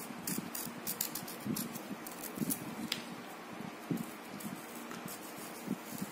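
Small fruit-carving knife slicing and scoring a thin piece of watermelon rind: faint, irregular crisp cuts and scrapes over a low steady hiss.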